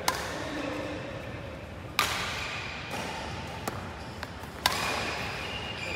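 Badminton rackets striking shuttlecocks: a few sharp, separate cracks, the loudest about two seconds in and again near the end, with smaller hits between.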